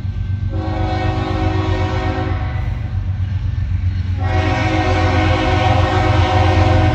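Kansas City Southern freight locomotive's air horn sounding two long blasts as the train approaches. The first runs from about half a second in to about four seconds; the second starts just after and is still going at the end, over a steady low rumble.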